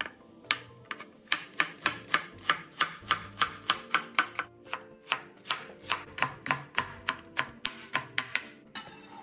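Chinese cleaver dicing red onion on a cutting board: a steady run of blade knocks, about four a second, stopping near the end.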